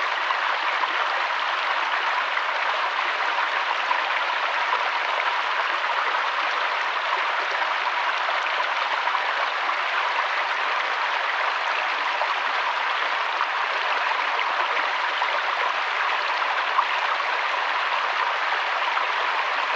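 Flowing water: a steady, even rush of a stream or river.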